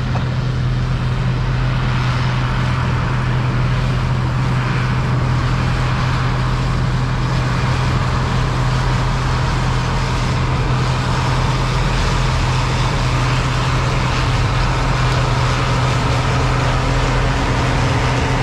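John Deere 820 tractor engine running steadily at a constant speed, with an even low hum.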